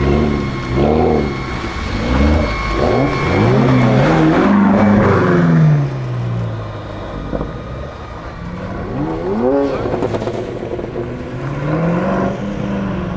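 BMW performance car's exhaust revving: quick blips over the first few seconds, a longer rev that falls away about six seconds in, then two more revs later on.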